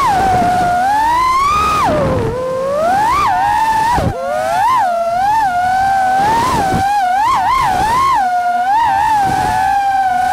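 FPV quadcopter's brushless motors whining, the pitch sliding up and down with the throttle: a long rise and fall in the first couple of seconds, a brief chop about four seconds in, then a string of quick throttle punches.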